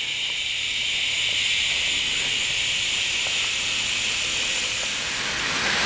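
Steady, high-pitched chorus of insects chirring outdoors at dusk, an even hiss that does not break.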